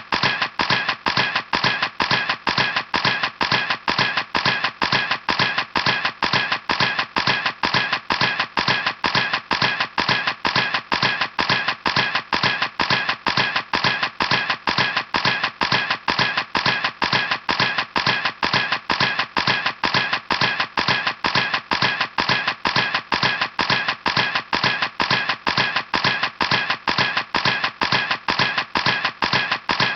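Camera shutter clicking over and over at an even pace, about three clicks a second.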